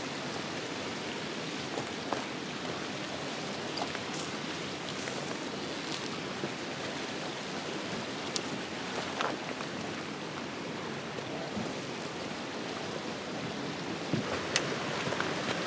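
Running water, a steady rush, with a few light clicks and taps scattered through it.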